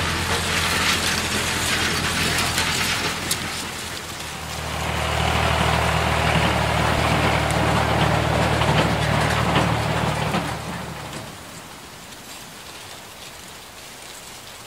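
A machine running with a steady low hum and rattling. It grows louder about four seconds in and stops about eleven seconds in, leaving a fainter hiss.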